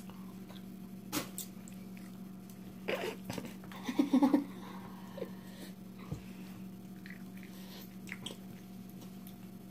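Ramen noodles being slurped and chewed: scattered short slurps and mouth sounds, busiest between about three and four and a half seconds in, over a steady low hum.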